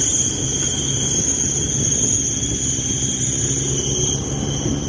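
Motorcycle engine running at a steady speed with wind rushing over the microphone while riding. A steady high-pitched buzz sits above the engine throughout.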